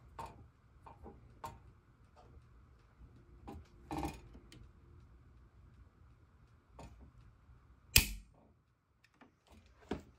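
Circuit breakers in a home breaker panel being switched by hand: scattered clicks, the loudest a sharp snap about eight seconds in.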